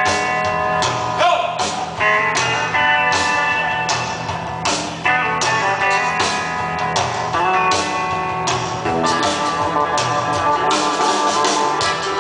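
Live rock band playing an instrumental passage: guitar over a steady drum beat.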